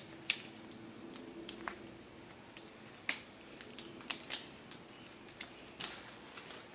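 Plastic wrapping on an L.O.L. Surprise toy ball crinkling and clicking in irregular bursts as hands work to peel a layer off, with a few sharper snaps.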